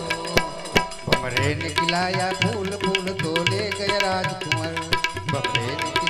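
Gujarati folk devotional music: tabla playing a quick steady rhythm, with the deep bass drum prominent, under a melody on harmonium and Indian banjo. The rhythm thins to a few single tabla strokes about half a second in, then picks up again.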